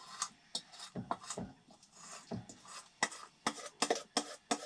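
A spoon scraping and knocking batter out of a stainless steel mixing bowl: a string of short scrapes and sharp metallic clinks, closer together in the last second and a half.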